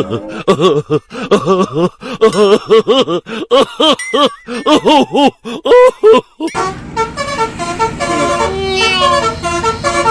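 Telolet multi-tone bus horn sounding: a fast run of short honks that swoop up and down in pitch, then, about six and a half seconds in, a tune of held notes stepping from one pitch to the next.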